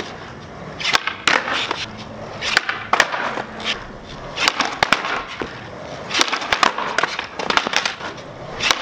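Skateboard rolling on concrete, with repeated sharp clacks of the board popping and landing during flip tricks.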